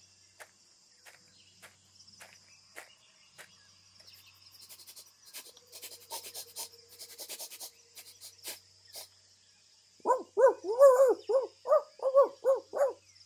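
A steady chirring of crickets or insects runs under scattered faint clicks and rustling. About ten seconds in, a puppy yaps rapidly, about a dozen short, high yips over some three seconds.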